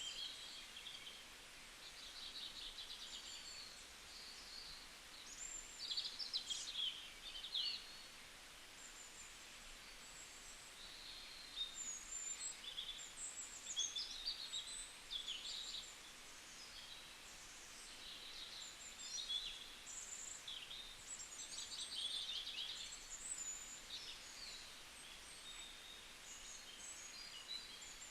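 Several small birds chirping and singing, short varied high calls overlapping one another, some quick trills among them, over a faint background hiss.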